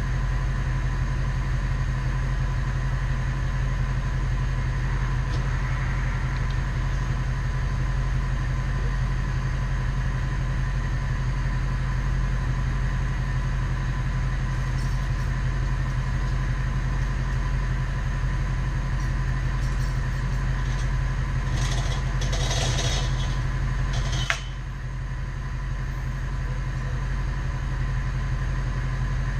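Bucket truck engine running steadily at idle. A short burst of hissing noise comes about 22 seconds in, then a sharp click, after which the engine sound drops slightly.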